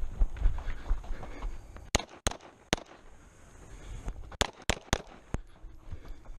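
String of 9mm pistol shots from a Springfield XDm 5.25: three shots about a third of a second apart about two seconds in, then four more in quick succession about four and a half seconds in. A low rumble fills the first two seconds.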